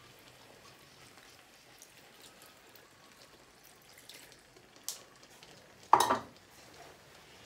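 Faint steady sizzling from a frying pan of spaghetti and mussels on the hob. A short click just before five seconds in, then a sharp knock about six seconds in as a bowl is set down on a wooden cutting board.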